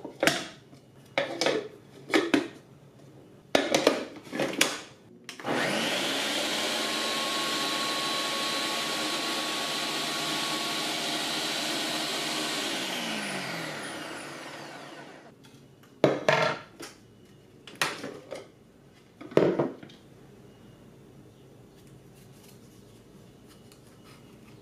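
Ninja 4-in-1 kitchen system's motor base driving the spiralizer's ribbon disc through a zucchini. It starts about five seconds in, runs steadily for about eight seconds, then falls in pitch as it winds down. Sharp plastic clicks and knocks from the lid, disc and food pusher being fitted and removed come before and after.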